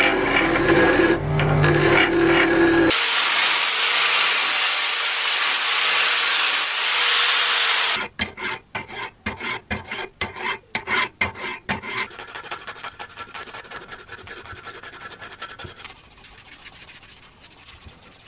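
A bench grinder runs while a small steel part is ground against its wheel, which gives a loud, steady grinding hiss. Then a hand file scrapes across the steel part held in a vise, about two or three strokes a second. Last comes a quieter, continuous rubbing of emery cloth worked back and forth around the steel shaft, which fades near the end.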